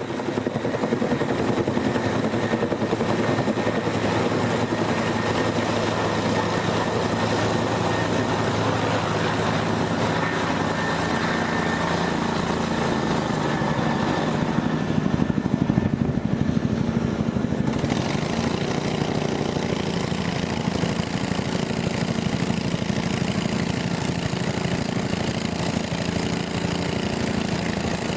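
Medium helicopter hovering close overhead, its rotor beating and turbine running steadily as it works a bucket at a fire-gel supply tank. The sound grows brighter about eighteen seconds in.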